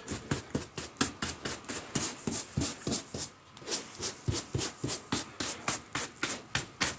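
Sand being swept back across a carpet in quick, scratchy strokes, about three a second.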